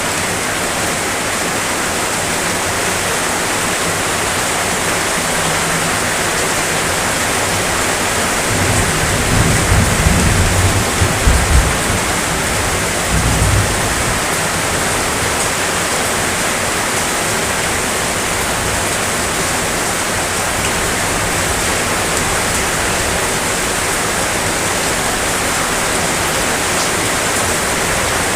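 Steady, heavy rainfall as an even hiss. About a third of the way in, a few low rumbles swell up and fade within a few seconds.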